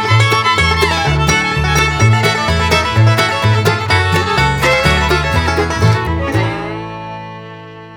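Upbeat instrumental music with plucked strings over a bouncing bass line. About six and a half seconds in, it ends on a final chord that rings on and fades out.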